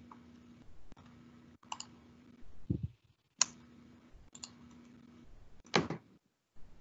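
Scattered faint computer mouse and keyboard clicks while a date is being looked up on a computer, with a few louder clicks, a soft low thump, and a faint steady hum that cuts in and out.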